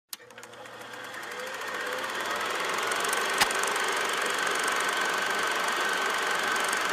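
Intro sound effect: a steady mechanical whirring rattle with hiss, fading in over the first two seconds and then holding, with a single sharp click about three and a half seconds in.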